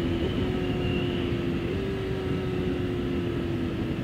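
Suzuki GSX-R 600 inline-four sport-bike engine running at steady riding revs, heard over the rush of wind and road noise. Its pitch holds nearly level, with a small hitch early and a slight rise partway through.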